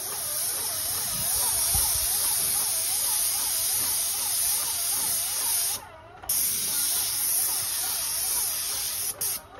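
Airless paint spray gun spraying paint onto a textured stucco wall: a steady loud hiss with a faint tone wavering up and down about twice a second beneath it. The spray stops for about half a second a little past the middle, resumes, and cuts off just before the end.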